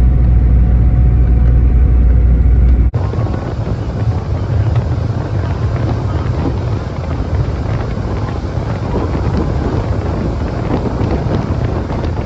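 Boat underway: a deep, steady engine rumble with wind on the microphone, changing abruptly about three seconds in to a loud rush of wind and water over a lower engine hum.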